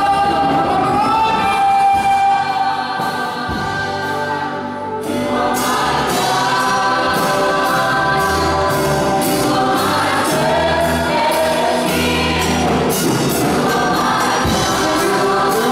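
Small group of women singing together into a microphone, with a bass and drum accompaniment coming in about five seconds in and carrying on under the voices.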